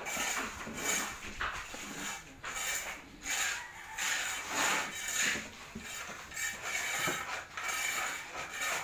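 Claw hammer knocking on a plywood cabinet panel, in irregular short knocks about once or twice a second.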